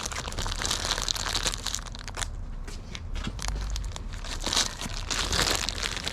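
Crinkling and rustling of something being handled, irregular crackles that ease off briefly midway.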